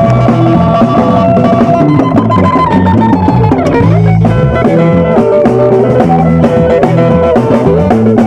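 Band music with guitar and drums playing loudly, with a swooping glide in pitch about four seconds in.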